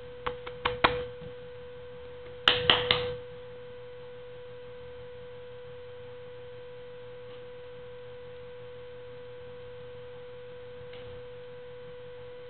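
A steady pitched hum, with two short clusters of sharp clicks and knocks about half a second and two and a half seconds in, the second louder.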